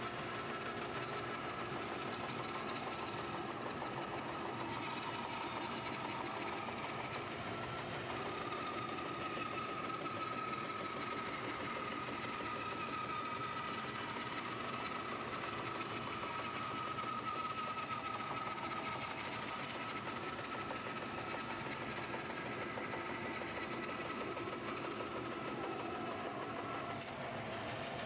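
Bandsaw with a 3/4-inch carbide-tipped Resaw King blade resawing a board, the dust collector running with it: a steady machine whir with a thin whine that is strongest through the middle of the cut.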